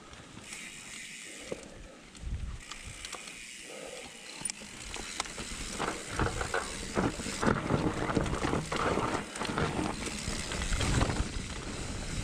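Bicycle coasting with a busy mechanical clicking and rattling, typical of a freewheel ratchet and parts shaking over the road. It grows louder and denser about halfway through.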